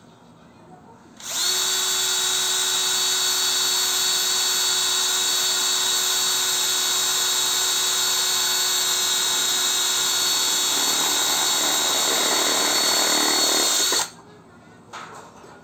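Bosch Professional cordless drill running steadily as its bit bores into the base of a terracotta clay pot, starting about a second in and running for about twelve seconds. The grinding of the bit in the clay grows rougher over the last few seconds before the drill stops suddenly, followed by a brief knock.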